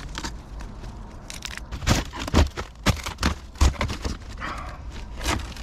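Irregular knocks, scrapes and crackles from rotted debris being pulled off a derelict boat's engine compartment and feet stepping about on its leaf-littered deck.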